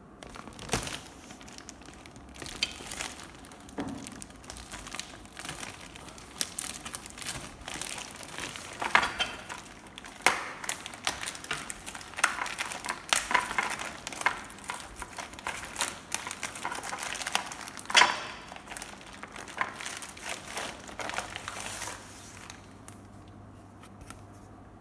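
Clear plastic packaging film crinkling and crackling in irregular bursts as hands pull and handle it around a flat-packed stool's parts. It dies down shortly before the end.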